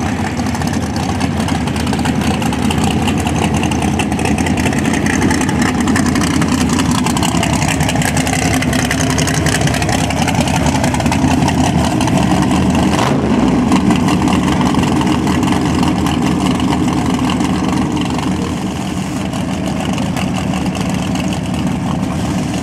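Drag race car engines running at a steady idle, with a slow dip and rise in pitch around the middle.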